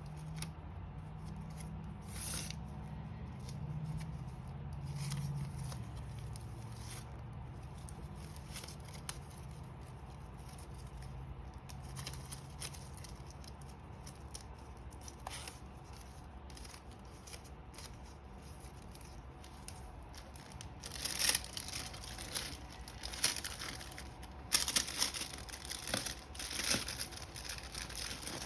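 Crinkling and rustling of plastic wrapping being handled, sparse and faint at first with a low hum, then a run of louder crackly bursts from about 21 seconds in.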